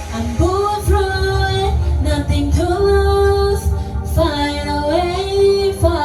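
A voice singing long held, gliding notes over a karaoke backing track with a steady low bass beat.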